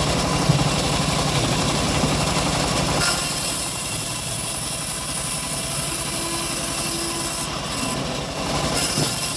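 Engine of a homemade band sawmill running steadily while the blade saws through a large teak log; the sound turns lighter about three seconds in.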